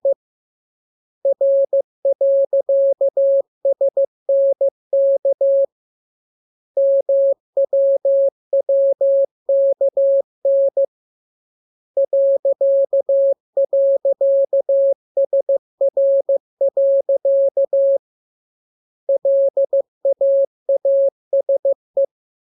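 Morse code (CW) being sent as a single steady beep switched on and off in dots and dashes, in four runs of letters separated by pauses of about a second. It is a practice radiogram of the lesson's letters K, M, U, R, E, S, N, A, P, T, L, W and I.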